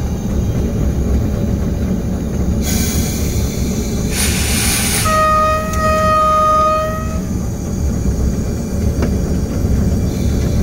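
Diesel locomotive running with a steady low rumble. About four seconds in there is a short hiss, then the horn sounds one steady note for about two seconds.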